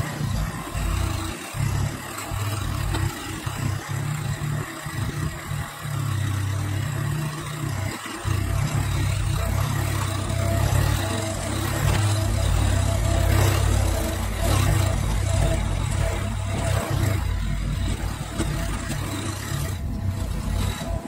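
Massey Ferguson GC1723E compact tractor's three-cylinder diesel engine running under load as the front loader pushes fill dirt into a trench, the engine level rising and falling.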